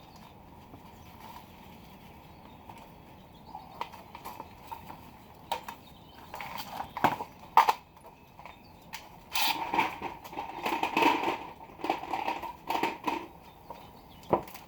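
A wooden board being worked into a boat's transom cavity: scattered sharp knocks, then a few seconds of wood scraping and rubbing against the hull from about ten seconds in.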